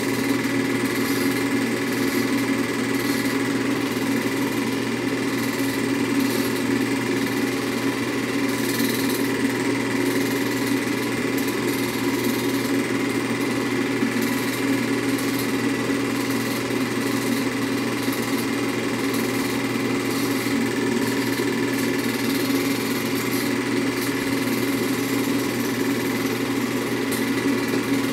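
Film projector running with a steady mechanical whirr from its motor and film-advance mechanism.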